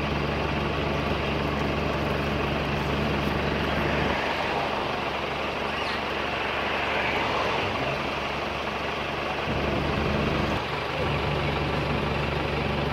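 Steady low hum of an idling vehicle engine under outdoor noise, weakening for about five seconds in the middle before returning.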